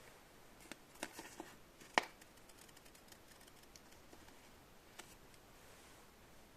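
A few small, sharp clicks and taps: one, then a short cluster, the loudest about two seconds in, and a last one near five seconds, over faint room hiss.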